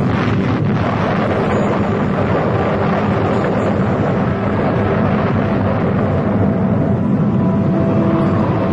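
A steady, loud roaring rumble, with faint held tones underneath.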